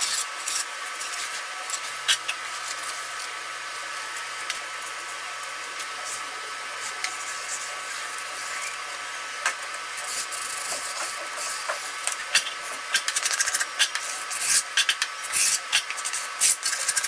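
A flat blade scraping and smoothing mortar over Kerdi-Band waterproofing membrane on a shower curb, with the membrane crinkling. The scrapes and taps come thicker in the last few seconds.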